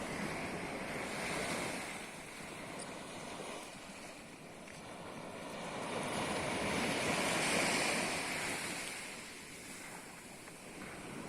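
Sea surf washing on the shore, a steady rush that swells and eases, with some wind on the microphone.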